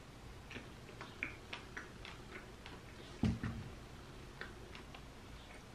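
Close-up chewing of toasted bread spread with seedy cloudberry jam: irregular small crunches and clicks, with one louder crunch about three seconds in.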